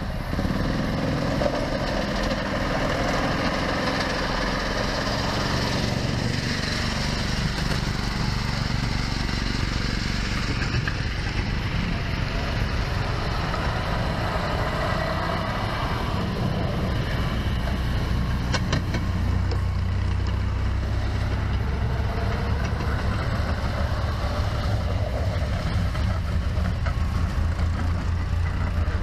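Railroad speeders' small gasoline engines running as the cars come along the track, a steady engine drone whose low note grows stronger about two-thirds of the way in as they draw nearer.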